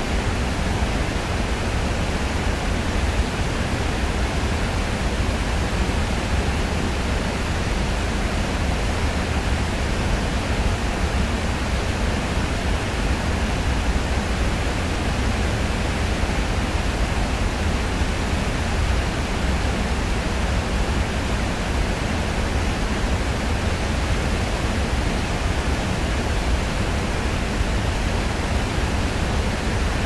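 Steady, unbroken rushing of a waterfall, an even wash of noise with a deep low rumble and no changes.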